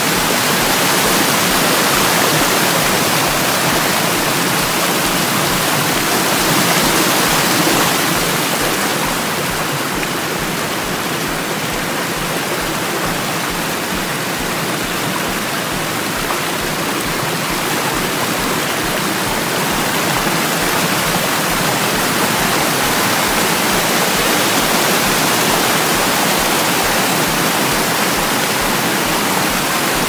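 Yoro Falls' water pouring down in a steady, loud rush.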